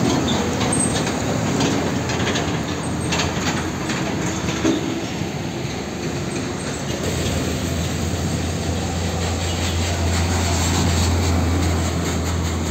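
Heavy diesel trucks and road traffic passing close by: a steady low engine drone with tyre and road noise.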